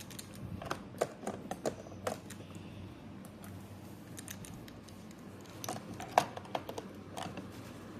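Light, irregular clicks and taps of small parts being handled as the car's gear shifter is taken off, in a few quick clusters.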